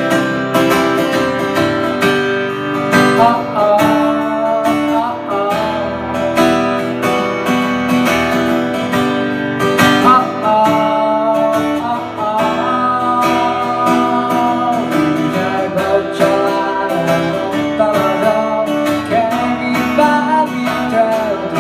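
Acoustic guitar strumming chords in a song, with a higher melody line bending and gliding over them.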